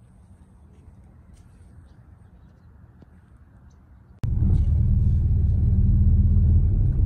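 Faint low background noise, then about four seconds in a loud, steady low rumble of a car's engine and road noise heard from inside the cabin while driving.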